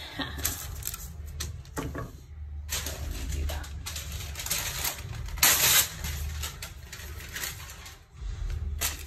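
Paper crinkling and rustling as parchment and tissue are handled on a countertop, loudest about halfway through, with a few light clicks early on as a small kitchen knife is set down; a low steady hum underneath.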